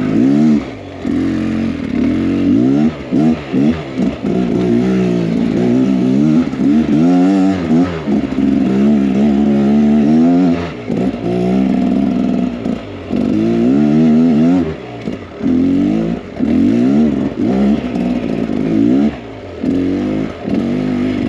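2023 Beta X Trainer 300's two-stroke single-cylinder engine revving up and down again and again under throttle. Its pitch climbs and falls every second or so, with short dips where the throttle is rolled off.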